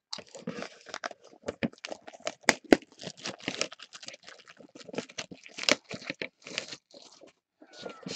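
Trading-card boxes being handled on a table: lids and boxes lifted, slid and set down in a run of irregular scrapes, taps and crinkles, with a few sharper knocks.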